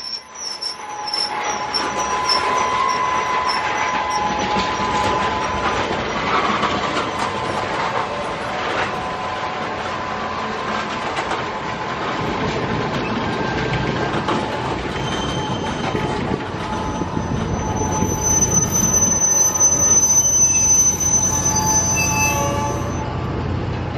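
Freight cars of a long mixed freight train rolling past close by, steel wheels running on the rails with steady high-pitched wheel squeal. A shriller squeal joins in about two-thirds of the way through and stops shortly before the end.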